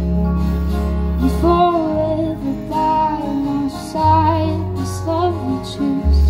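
Live folk band with acoustic guitars and banjo over bass and drums; a woman's lead vocal comes in about a second and a half in.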